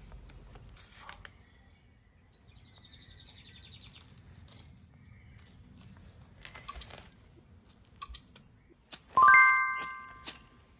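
Birds chirping, with a fast trilling call a couple of seconds in and scattered short high chirps. Near the end a loud bell-like chime rings out and fades.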